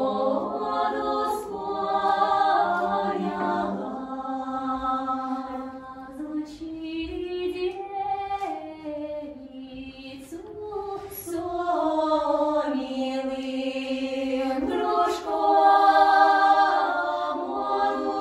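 Choir singing, several voices holding long notes and moving together from one chord to the next.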